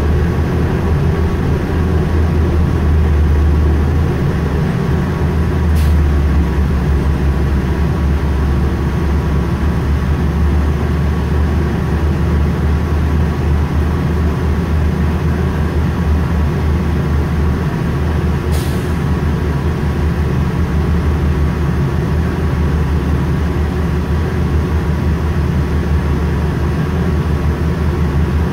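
Steady low hum of a New Flyer C40LF natural-gas transit bus's engine, heard from inside the bus as it sits in traffic. Two short air hisses from the bus's air system, about six seconds in and again about eighteen seconds in.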